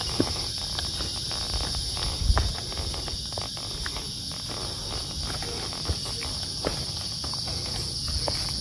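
Steady high-pitched insect chorus in the forest, with a hiker's footsteps on a dirt trail and one heavier thump about two seconds in.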